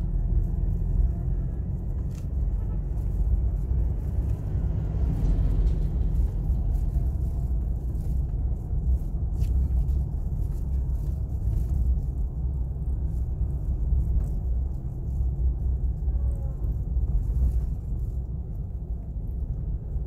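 Steady low rumble of a car driving, heard from inside the cabin: road and engine noise.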